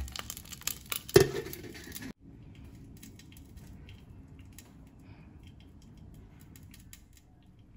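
Crackling and sizzling from hot charcoal smoking in a steel cup set among marinated chicken, with one sharp metallic clank about a second in. After about two seconds the sound drops to faint, scattered ticking crackles.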